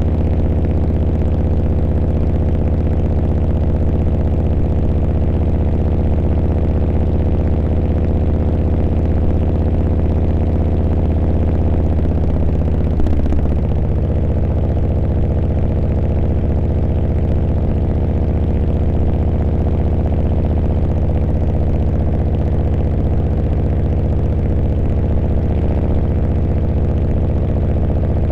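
Harley-Davidson V-twin motorcycle engine running at a steady, low speed, with a brief change in its note about halfway through.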